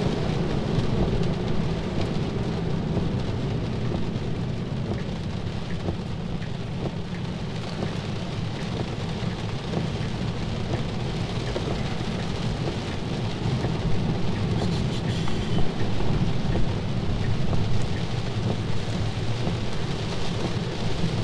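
Heavy rain pattering on a car's roof and windshield, heard from inside the cabin over a steady low rumble of tyres on the wet road.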